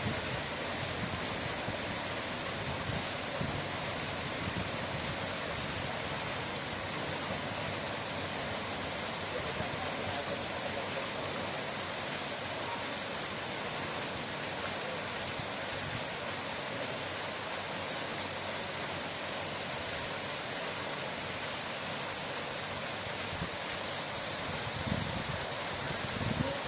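Running water rushing steadily, an even unbroken hiss.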